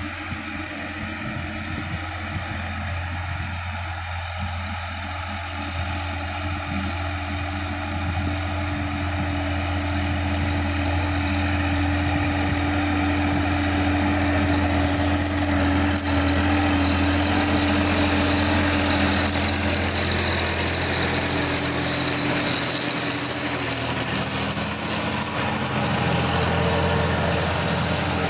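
Sonalika DI-50 RX tractor's diesel engine running steadily under load as it drives a rotary tiller through the soil. It grows louder as the tractor comes close, then eases and rises again near the end.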